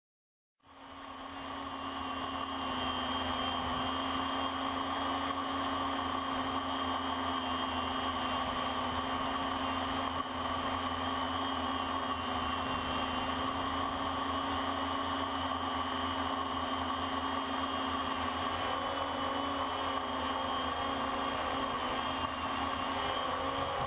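Electric motors and propellers of a small camera drone running steadily, a constant whine made of several held tones over a whirring hiss, picked up by the camera mounted on the craft. It fades in within the first couple of seconds and then holds level.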